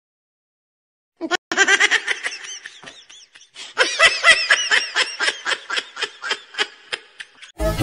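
High-pitched laughter in quick, rhythmic ha-ha pulses, in two bouts: a short one starting about a second in and a longer one from just before four seconds. The song's music cuts back in at the very end.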